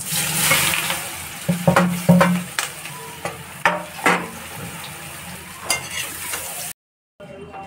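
Chopped leafy greens dropped into hot oil in a steel kadhai, sizzling loudly as they hit. Then a metal spatula clinks and scrapes against the pan several times as they are stirred. The sound cuts out for a moment near the end.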